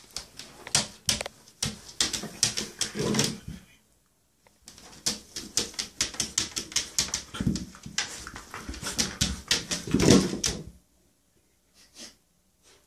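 A puppy's claws scratching and scrabbling on a plastic shower tray: two long spells of quick, sharp clicks, then a few single scratches near the end.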